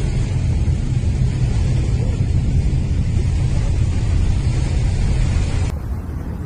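Loud, steady low rumbling noise, strongest in the bass. Near the end it abruptly turns duller and a little quieter.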